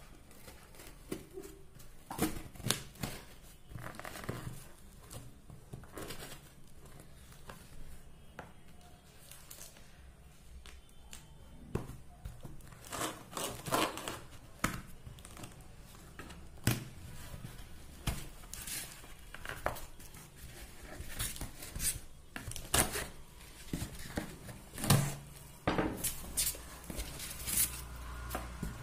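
Packing tape on a cardboard parcel being cut with a blade and torn, then the cardboard flaps being pulled open: irregular crackling, scraping and tearing sounds throughout.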